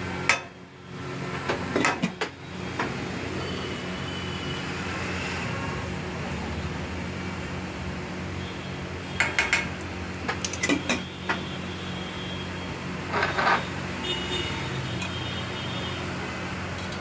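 Metal ladle and utensils clinking and clanking against the dosa griddle and pots: a sharp clank right at the start, a few about 2 s in, and clusters of clinks in the middle and near 13 s, over a steady low hum.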